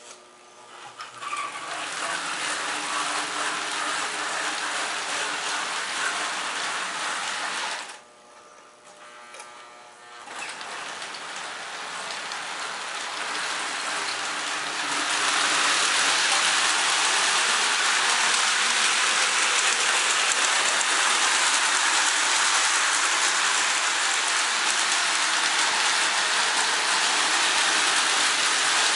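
1960s Marx Santa Fe toy diesel train running on its track: a steady mechanical whir and rattle of the motor and wheels on the rails. It drops quieter for about two seconds around eight seconds in, then builds again and runs louder and steady from about halfway.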